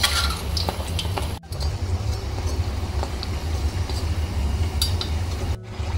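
Samosas deep-frying in hot oil in an iron kadhai, a steady sizzle over a low rumble, with a few light clinks of a slotted steel spatula turning them. They are being browned on high heat at the end of frying.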